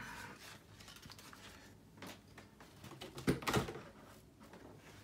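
Handling noise from a plastic RC car chassis: faint clicks, then two knocks in quick succession about three and a half seconds in as the car is set down on top of a cardboard box.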